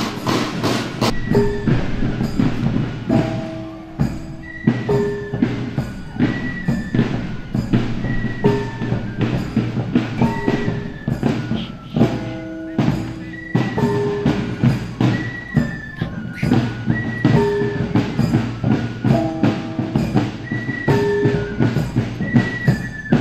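Javanese bregada (palace guard) marching band playing: drums beat a steady march while a short tune of held pitched notes repeats over it every few seconds.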